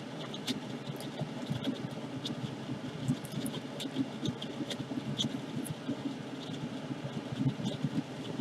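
A small motor running steadily with a low hum, with light scattered clicks and taps over it.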